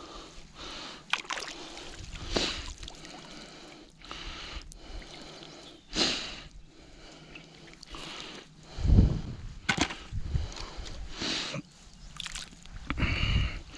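A wet gill net handled at the water's edge: mesh and cord rustling, water sloshing and dripping as a fish is worked free of the tangled net by hand. A few dull thumps break in, the loudest about nine seconds in.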